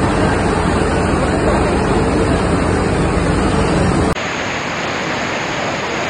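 Torrent of muddy floodwater rushing down stone steps, a loud, steady rush of water. About four seconds in it cuts abruptly to another recording of the flood, a little quieter and lighter in the bass but still a steady rush.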